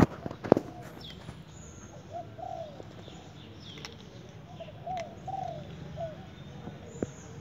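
Dove cooing in short phrases of two or three notes, repeated every couple of seconds, with a few faint high chirps from other birds. Two sharp clicks come near the start.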